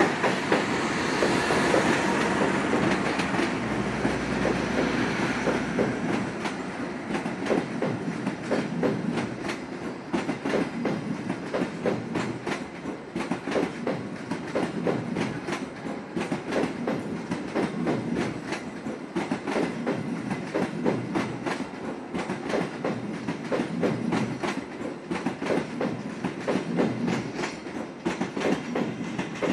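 CC206 diesel-electric locomotive passing at speed with its engine running for the first few seconds. A long rake of passenger coaches follows, wheels clacking rapidly and steadily over the rail joints.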